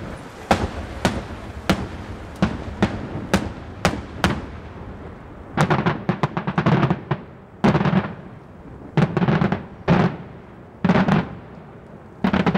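Daytime aerial fireworks shells exploding overhead: a steady series of sharp bangs about two a second, then from about halfway through, clusters of rapid crackling reports in quick volleys.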